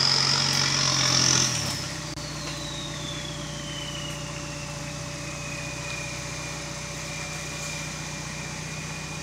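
Toyota 4Runner's turbo diesel engine crawling over rocks: it revs for about a second and a half, then drops back to a low, steady run. A high turbo whine falls in pitch as the revs drop and settles into a steady whistle.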